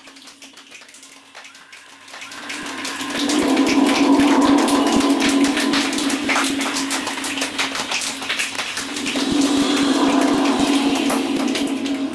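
A choir imitating rain with body sounds: a dense patter of many quick clicks and slaps that builds, eases off, then swells again, over one steady hummed low note.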